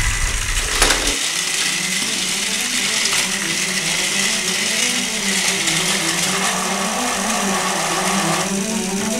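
Battery-powered TrackMaster toy train motors whirring steadily, with their wheels rattling on plastic track. A sharp click comes a little under a second in.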